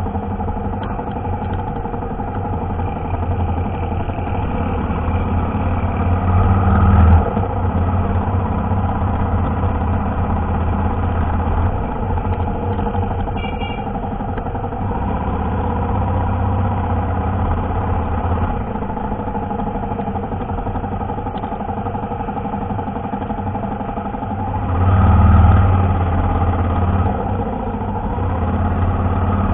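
Motorcycle engine running while riding slowly through town traffic, swelling louder with the throttle about seven seconds in and again near the end. A short beep sounds about halfway through.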